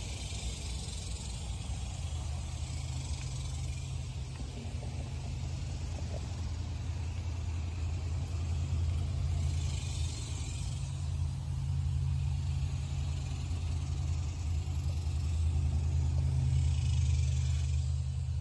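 A steady low engine rumble, like a vehicle idling, with short bursts of hiss at the start, around ten seconds in and near the end.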